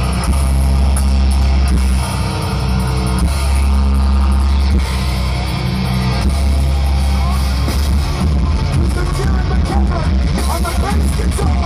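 Live heavy metal band playing loud, with distorted electric guitars and heavy bass, recorded on a phone microphone in the crowd.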